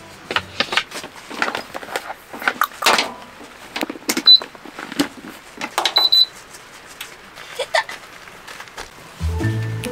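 Clicks and knocks of a wooden heater stand and a power cord being handled, with short high electronic beeps from a PASECO kerosene heater's control panel as it is switched on: one beep about four seconds in and a quick run of beeps around six seconds.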